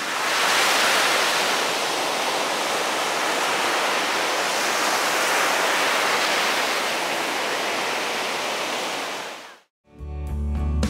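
Ocean surf washing up a sandy beach: a steady rushing of breaking waves that cuts off abruptly near the end, where strummed guitar music begins.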